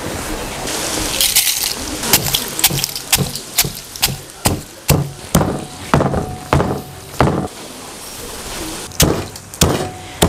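Wooden pestle pounding dried fried chillies in a stone mortar, knocking steadily about twice a second, with a short pause before the strokes resume near the end. A dry rustling comes first, in the opening couple of seconds.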